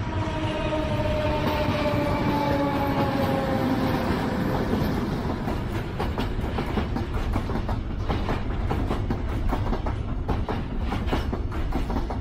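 Two ČD Cargo class 753.7 diesel locomotives pass at the head of a container freight train, their engine drone falling in pitch as they go by. From about six seconds in, the container wagons roll past with a rhythmic clickety-clack of wheels on the rails.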